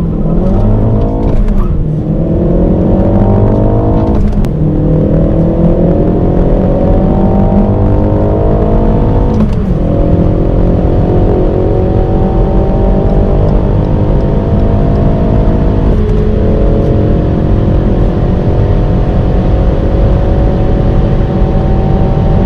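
Turbocharged four-cylinder hot-hatch engine under full-throttle acceleration through the gears. Revs climb steadily in each gear, then drop with a brief crack at each of four upshifts, about 1.5, 4, 9.5 and 16 seconds in, each gear pulling longer than the one before.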